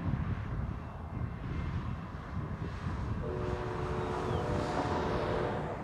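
VIA Rail P42DC diesel locomotive approaching at speed with a low rumble. About three seconds in, its air horn sounds a steady chord, held until just before the end.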